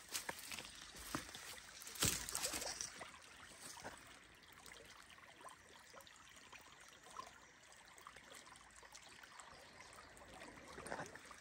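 Small creek trickling faintly over its bed. There are a few sharp crackles and knocks in the first three seconds, the loudest about two seconds in.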